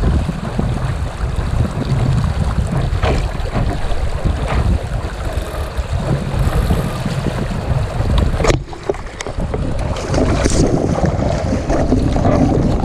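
Wind rumbling and buffeting on the microphone aboard a Sunfish sailing dinghy, over water splashing against the hull, with a few sharp splashes or knocks standing out; the sound changes abruptly about eight and a half seconds in.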